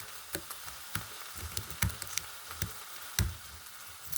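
Chili sizzling in a pot on the stove, a steady hiss, with irregular knocks and taps of utensils or containers being handled.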